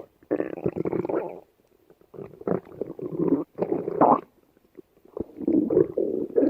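A woman's stomach growling and gurgling in irregular spells: one lasting about a second near the start, a longer broken run of gurgles from about two seconds in, and another spell near the end.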